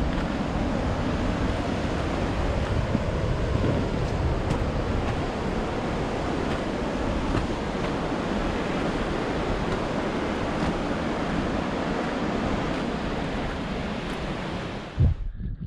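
Wind buffeting the microphone: a loud, steady rush with a heavy low rumble that flickers. Near the end there is a single thump, and the rush cuts off.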